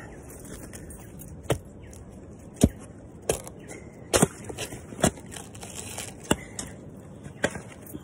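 Hand pruning shears snipping into the dry, fibrous husk of a sprouted coconut to strip it. It gives about ten sharp cuts and cracks at irregular intervals, the loudest about two and a half seconds in.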